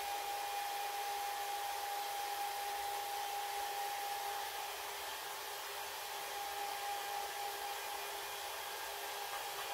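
Handheld hair dryer running steadily: an even blowing hiss with a steady whine, easing slightly about halfway through.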